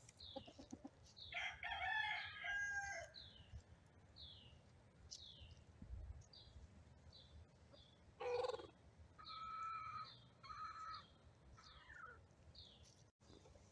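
Roosters crowing at a distance, twice: once about a second and a half in and again about nine seconds in, with a short squawk just before the second crow. A small bird's high, falling chirp repeats throughout.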